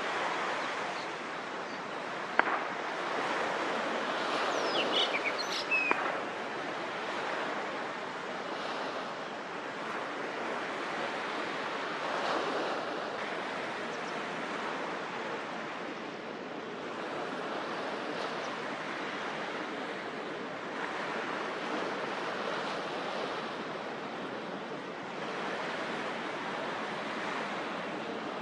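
Steady rushing wash of harbour water and wind, with no engine or horn standing out. A single sharp click about two and a half seconds in, and a few brief high chirps around five to six seconds.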